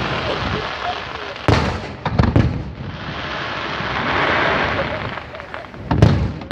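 Aerial firework shells going off in a display. Deep booms come about one and a half seconds in, a few more just after two seconds, and another near the end, over a steady hiss between the bangs.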